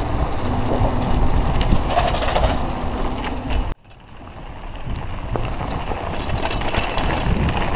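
Mountain bike being ridden, with wind rushing over the helmet camera's microphone and the bike rattling and clicking over the ground. The sound cuts off abruptly about halfway through, then fades back in.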